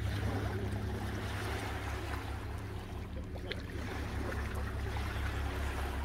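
Small waves lapping on a lake shore, with a steady low rumble of wind on the microphone.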